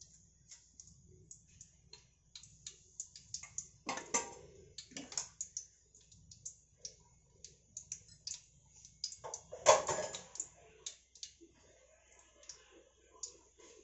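Whole spices (cumin seeds, cloves, cinnamon and bay leaves) crackling in hot oil in an aluminium pot: many small irregular pops, with a louder crackle about four seconds in and the loudest about ten seconds in.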